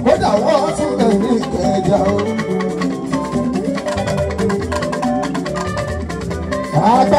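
Live Fuji band music: a man singing over percussion, guitar and keyboard, his voice strongest in the first two seconds and again near the end.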